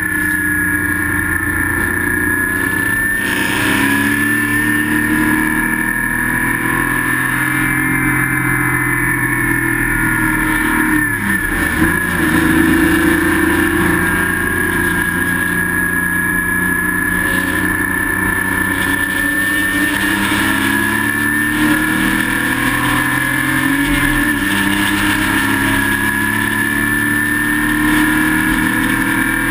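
Porsche Spec Boxster's flat-six engine heard from inside the race car's cabin, under hard racing load. The revs climb and drop again and again, with a sharp drop about eleven seconds in and another about twenty-four seconds in.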